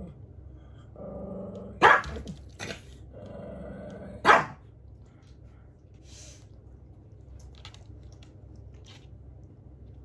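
Pekingese growling at being prodded in its bed, each growl breaking into a sharp, loud bark: two growl-and-bark outbursts about two and a half seconds apart, a warning at being poked.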